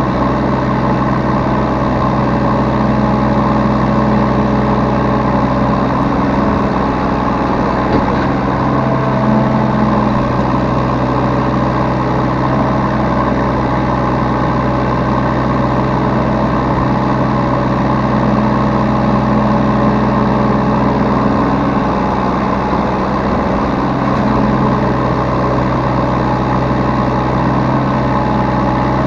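Yanmar B3 Sigma mini excavator's diesel engine running steadily, heard from the operator's seat, its note shifting slightly now and then as the machine works.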